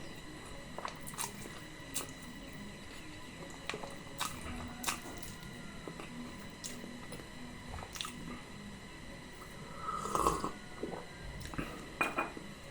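Close-miked eating sounds of soft potato and chickpea curry: quiet chewing and squishing with scattered small clicks, and a somewhat louder mouth sound about ten seconds in.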